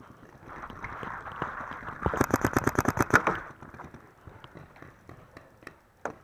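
Paintball marker firing a rapid burst of shots, about a dozen a second for just over a second, followed by scattered single pops and another burst starting at the very end.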